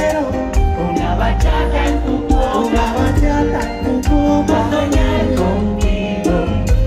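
Live bachata band playing loudly through a concert PA, with sung vocals over heavy bass and a steady beat.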